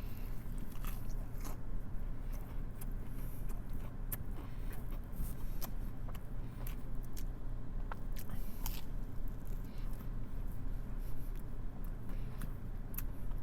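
A person chewing a breaded chicken tender close to the microphone, with scattered crunches and mouth clicks, over a steady low hum.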